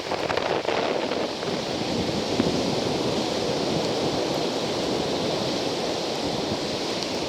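Wind buffeting the microphone over the steady rush of sea surf, an even noise without distinct events.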